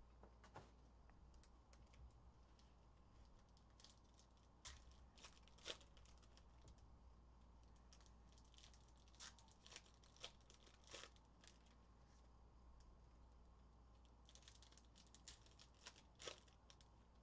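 Faint crinkling and tearing of foil trading-card pack wrappers as packs are ripped open, in several short flurries of sharp crackles, over a faint low hum.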